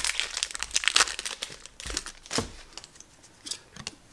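Foil wrapper of a Pokémon Sun & Moon booster pack crinkling and tearing as it is opened by hand: a quick run of sharp crackles that thins out to a few scattered ticks a little over halfway through.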